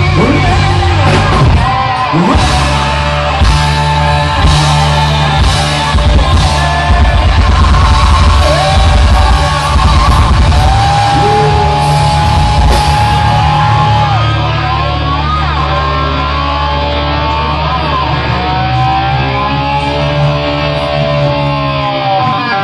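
Live hard rock band with electric guitars, bass and drums at the close of a song: cymbal crashes and loud guitar at first, then from about halfway a long held low note under a guitar line bending up and down in pitch.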